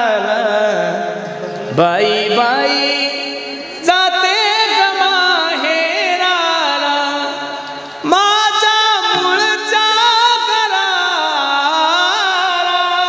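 Devotional kirtan singing: a voice holding long, drawn-out notes with sliding ornaments, in phrases that start afresh about 2, 4 and 8 seconds in.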